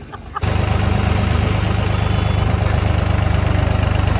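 Tractor diesel engine running steadily and loudly, cutting in suddenly about half a second in.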